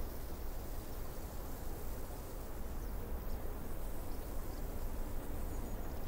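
Ocean surf, a steady low rumble of waves breaking.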